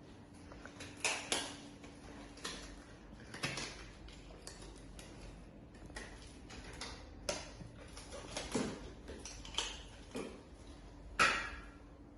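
Irregular clicks and light knocks of medical monitoring equipment being handled and set down, about a dozen in all, the loudest about a second in and near the end.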